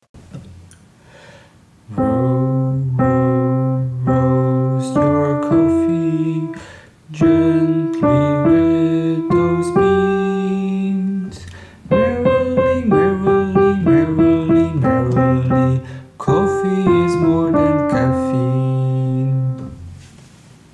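Intro theme music played on a piano-like keyboard: a run of chords and melody notes that starts about two seconds in and fades out near the end.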